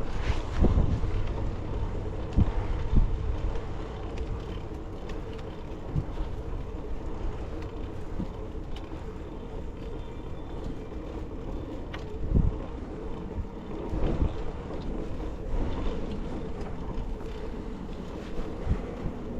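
Wind rushing over the microphone while an SE Bikes Big Ripper is ridden along the street, with steady tyre rumble and several short knocks from bumps in the road.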